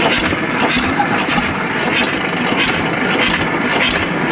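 An old diesel tractor engine running just after a cold start, with a sharp beat repeating a little under twice a second over a continuous rumble.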